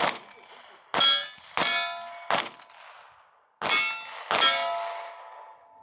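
Gunshots striking steel targets, each hit ringing out like a struck metal plate. There are six hits, several in quick pairs, the last two near the end with the ringing slowly dying away.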